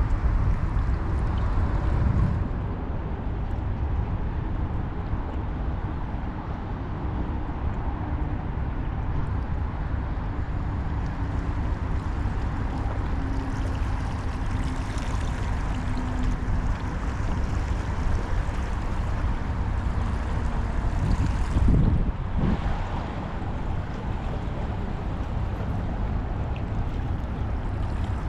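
Steady low rumble of wind and water, with a brief louder surge about three quarters of the way through.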